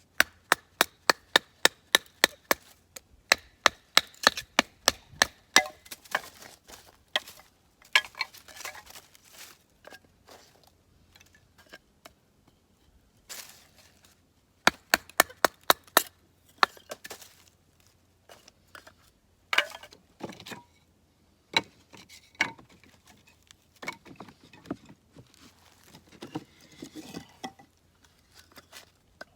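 Blade chopping on wood, in quick runs of sharp, evenly spaced strikes about two to three a second, then slower scattered strikes.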